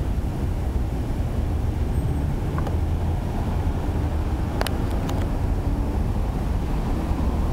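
Steady road traffic on a busy city avenue: cars passing close by in a continuous low rumble, with a few short clicks about halfway through.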